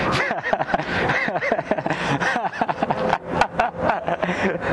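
People's voices laughing and snickering, mixed with talk, over steady street noise.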